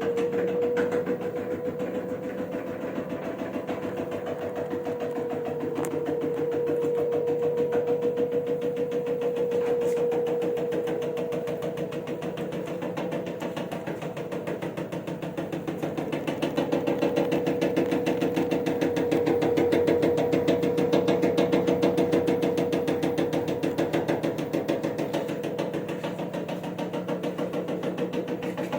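LG Direct Drive washing machine spinning at speed: a steady motor whine that levels off within the first couple of seconds, over a fast continuous rattle and knocking whose loudness swells and falls. The repairer puts the knock down to the cabinet having rotted through at the shock-absorber mount, letting the drum wobble hard, with the bearings still in working order.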